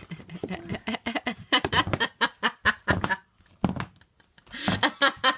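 Clacking of a pair of women's high-heeled shoes on a hard floor as a toddler stomps about in them, a quick uneven run of knocks, several a second. A short vocal sound near the end.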